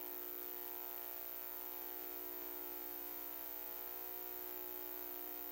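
Steady electrical hum with a buzzing edge, one unchanging tone with many overtones, faint under the room.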